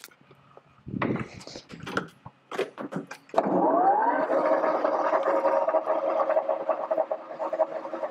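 A few knocks and clicks. Then, about three seconds in, the Hwacheon HL-630 15 hp engine lathe starts in high speed. The spindle and its 20-inch four-jaw chuck spin up with a briefly rising pitch and then run steady, with a set of steady tones from the geared headstock.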